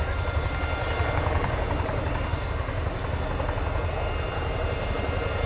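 RAF Chinook twin-rotor helicopter hovering low with an underslung load: a deep, rapid rotor blade slap runs under a steady high-pitched whine.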